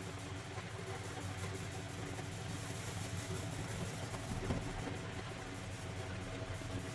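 A steady low mechanical hum with a faint click about four and a half seconds in.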